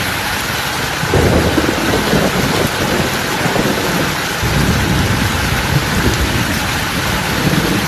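Loud, steady rush of water noise, with low rumbling swells starting about a second in.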